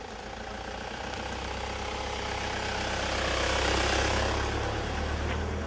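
A motor vehicle driving past close by: engine and road noise swell to a peak about four seconds in and then fade, over a steady low engine hum.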